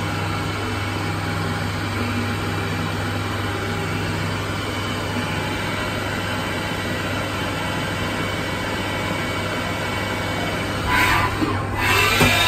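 Haas VF-2 CNC vertical machining center running with a steady hum and whine as its table traverses. Near the end come two short, louder rushes of noise.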